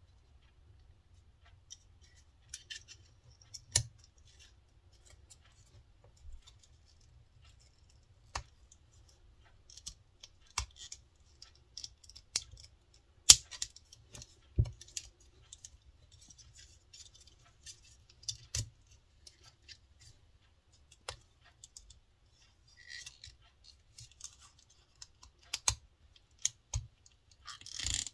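Irregular sharp metal clicks and taps from a small steel binder clip being handled, its wire handles snapping and knocking against the clip as a leather strip is fitted onto it, with light rustling between the clicks. The loudest click comes about thirteen seconds in, and a quick cluster of clicks comes near the end.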